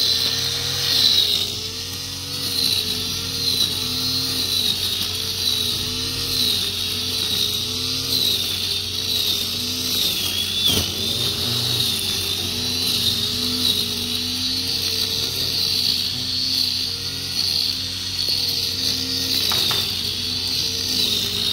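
Homemade grass trimmer made from a metal-cutting grinder with lengths of clutch and brake cable as the cutting line, running steadily through tall grass. Its motor whine wavers up and down in pitch as the cable strands bite into the grass, with a single sharp knock about halfway.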